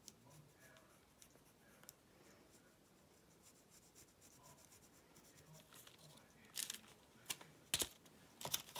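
Pencil drawing on tracing paper: faint, soft scratching strokes. From about two-thirds of the way in, several louder sharp crackles as the sheet of tracing paper is lifted and handled.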